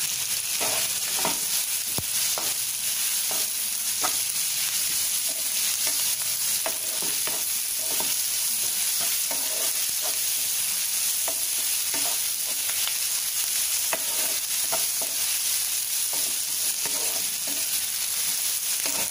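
Sliced onions, green chillies and garlic sizzling in oil in a nonstick pan while being sautéed, with a spatula scraping and tapping against the pan again and again as they are stirred.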